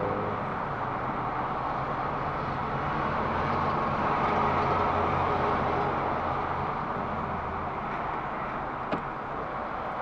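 A car's engine running with tyre noise, heard from inside the cabin as the car manoeuvres slowly. The low hum swells mid-way and eases off about eight seconds in, followed by a single short click near the end.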